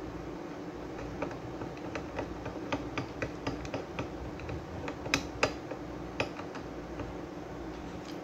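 Small screw being driven by hand with a screwdriver into an amplifier circuit board on a loudspeaker: a run of small, irregular metallic clicks and ticks, with two sharper clicks about five seconds in.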